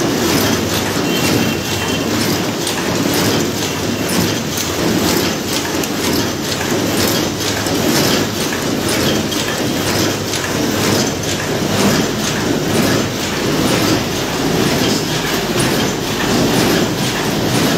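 High-speed paper cup forming machine running: a loud, steady, rapid mechanical clatter.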